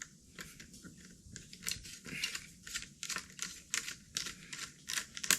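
Irregular small clicks and crinkling from objects being handled, with a sharper click near the end.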